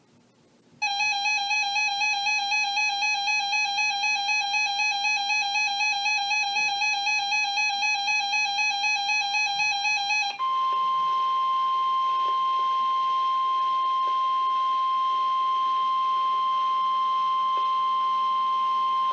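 A buzzy electronic alert tone warbles about five times a second for roughly nine seconds. It then switches to the steady 1050 Hz NOAA Weather Radio warning alarm tone, held for about nine seconds, which signals that a warning announcement follows.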